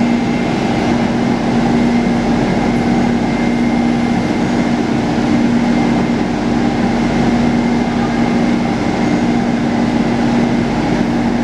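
Steady hum from a standing Rusich 81-740/741 metro train, heard inside the car: its onboard equipment runs with an even noise, a strong low tone and a faint higher whine, unchanging throughout.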